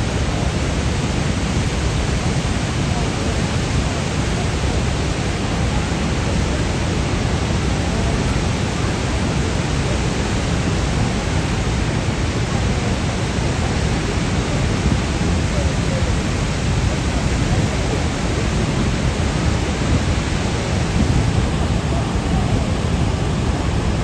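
Niagara Falls' falling water as a loud, steady rush of noise.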